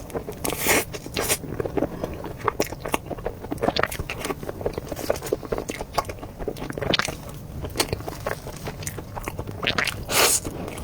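Close-miked wet chewing and lip smacks of someone eating a soft durian mille-crêpe cake layered with cream and durian flesh, as many short irregular clicks, with two louder breathy swells, one near the start and one near the end.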